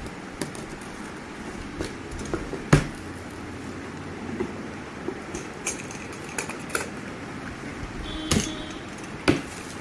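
Cardboard carton being cut and opened by hand: a box cutter slitting the sealing tape and the flaps being pulled open, with irregular sharp clicks and knocks, the loudest nearly three seconds in.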